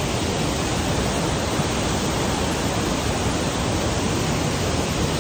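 Loud, steady rush of white water from a mountain stream cascading over boulders.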